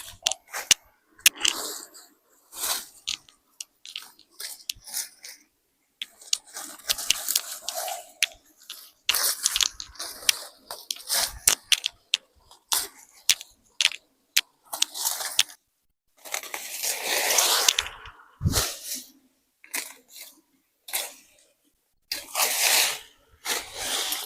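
Irregular crunching and rustling with many sharp clicks, coming in uneven bursts separated by brief silences.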